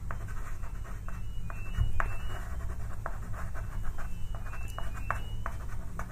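White soft pastel stick scratching and rubbing across paper in short strokes, with a few sharp clicks as the stick meets the paper, over a steady low hum.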